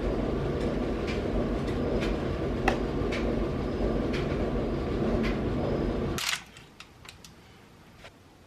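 A steady rushing noise with a few faint ticks, which stops abruptly with a sharp click about six seconds in, leaving only a faint hiss.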